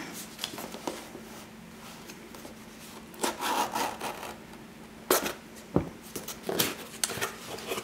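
Cardboard mailer box being handled while its paper seal is cut with scissors: cardboard rustling and rubbing, snips, scattered taps, and a dull knock a little before six seconds in.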